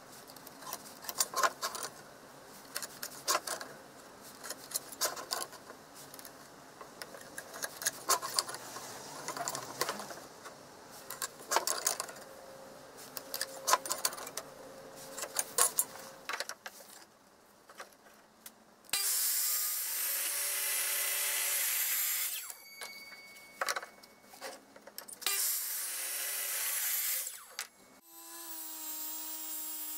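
Scattered light taps and clicks of a pencil and steel ruler being handled against a wooden workpiece while cut lines are marked. Later a power tool runs in two bursts of about three seconds each, and near the end a random orbital sander starts and runs steadily.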